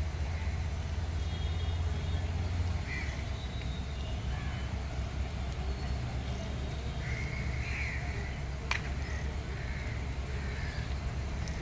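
Steady low outdoor rumble of distant traffic, heavier for the first few seconds, with a few crow caws and one sharp click a little before the end.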